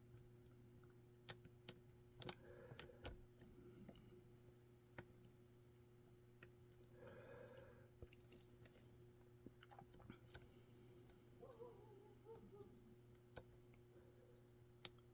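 Lock pick and tension tool working the pins of a Mul-T-Lock Junior pin-in-pin cylinder: faint, scattered, irregular metal clicks over a low steady hum.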